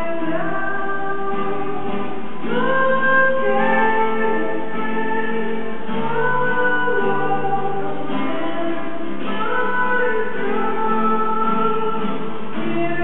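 A man singing a slow song in long held notes, with musical accompaniment.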